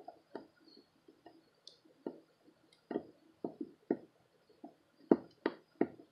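Faint, irregular light clicks and taps as a soldering iron tip presses and scrapes on the plastic posts and metal keyboard plate of a laptop palmrest, melting the posts to fix the plate.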